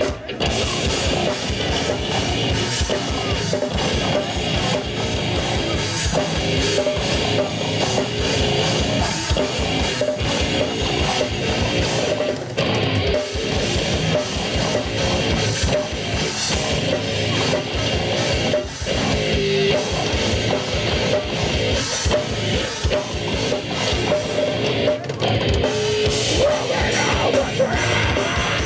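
Heavy metal band playing live: electric guitars over fast, dense drumming on a drum kit.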